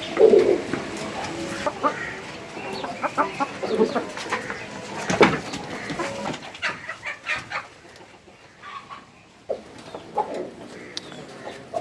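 Chickens clucking, mixed with many short clicks and knocks; the sounds thin out for a moment past the middle.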